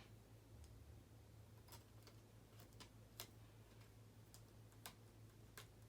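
Near silence with a steady low hum and about a dozen faint, sharp clicks and ticks scattered over several seconds, from small parts being handled during hand wiring work.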